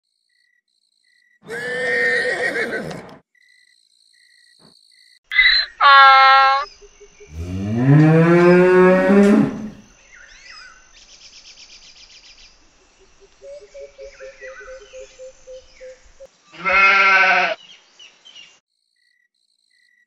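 Farm animal calls one after another with pauses between, among them a long cow moo rising in pitch about seven seconds in, several shorter calls before and after it, and one last call a few seconds before the end. Faint insect chirping sounds between the calls.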